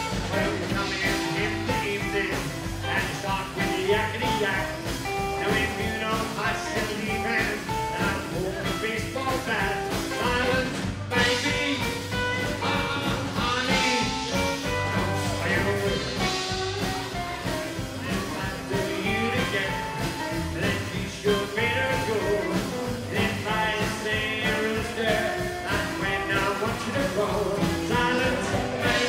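Live rockabilly band playing with a steady beat: electric guitar, acoustic guitar, upright double bass and drum kit.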